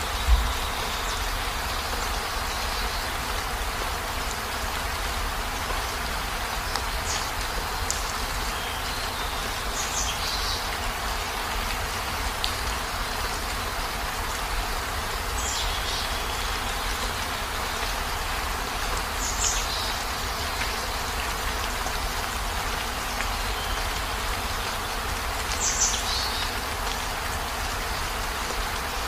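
Steady heavy rain on a campervan's roof and windows, heard from inside: an even patter with a low rumble underneath and a few brief, sharper high sounds standing out now and then.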